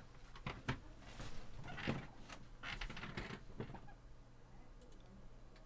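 Faint scattered clicks, knocks and rustles of a person moving at a desk and office chair, handling things on the table, dying down after about four seconds.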